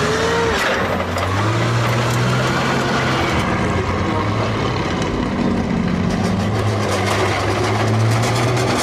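Heavy tracked armoured vehicle running: a steady low engine sound that rises and falls slightly in pitch, with faint clanking from the tracks.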